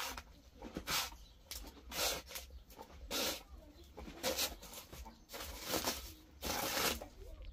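Hand trowel scraping dry cement powder out of a paper sack and tipping it into a metal basin: repeated short scrapes and pours, roughly one a second.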